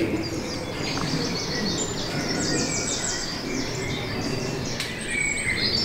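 Small songbirds singing, with quick high chirps and trills and a rapid run of notes about two and a half seconds in, over a steady low background noise.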